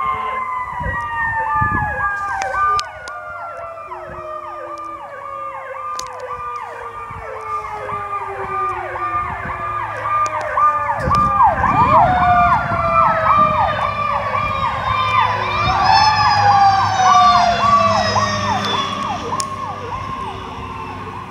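Rescue squad truck's emergency sirens: a fast electronic yelp cycling about three times a second, layered over a second siren winding down in one long falling wail that sweeps up again about 15 seconds in. A heavy engine rumbles underneath.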